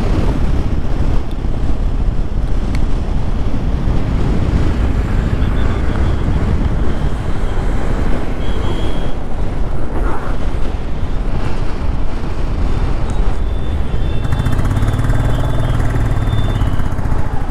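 Riding a Royal Enfield Classic 350 at road speed: wind buffeting the rider's camera microphone over the steady run of the bike's single-cylinder engine. A low drone swells for a few seconds near the end.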